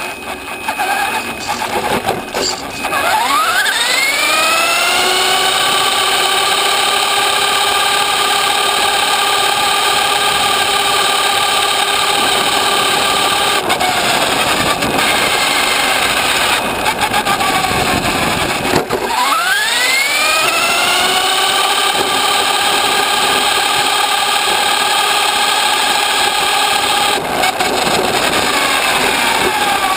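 Radio-controlled car's motor and gears whining, picked up by a camera riding on the car. The pitch climbs steeply as it accelerates, once about two seconds in and again about nineteen seconds in. Between these it holds a steady high whine at speed, dropping as the car slows, over rough tyre noise from the road.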